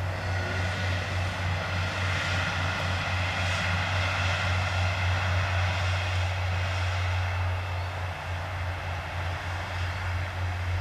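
Two-car JNR KiHa 40/48 diesel railcar train running past at a distance, a steady engine drone over a constant low rumble.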